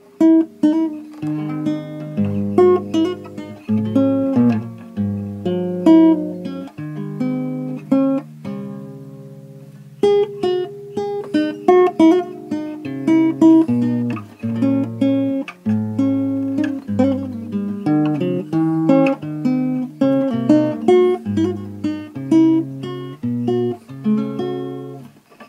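Acoustic guitar music: plucked notes over a moving bass line, with one chord left to ring out and fade about a third of the way in before the playing resumes.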